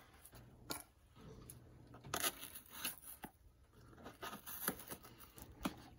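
Folding knife blade cutting into the packing tape and cardboard of a sealed shipping box: a series of faint, short, scratchy strokes.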